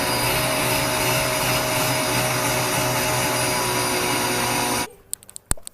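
A small electric motor appliance running steadily, a rushing air noise with a fixed whine, that cuts off abruptly about five seconds in, followed by a few sharp clicks.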